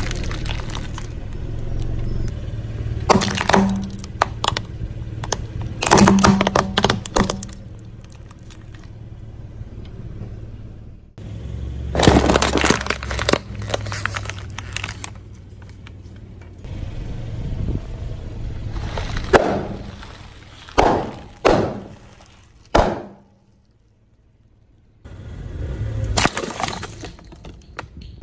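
A car tyre rolling over and crushing plastic and cardboard packaging. It comes as a series of separate crunching and cracking bursts several seconds apart, one of them a longer crackle lasting a few seconds. A low rumble runs under some of the bursts.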